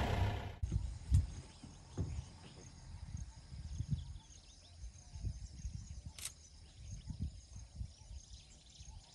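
Quiet outdoor ambience in open scrub: wind gusting on the microphone in irregular low rumbles over a faint, steady high background, with a single sharp click about six seconds in.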